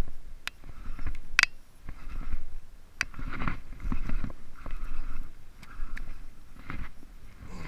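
A largemouth bass being reeled in on a baitcasting rod: repeated rustling handling noise with a low rumble and a few sharp clicks, while the hooked fish splashes at the surface.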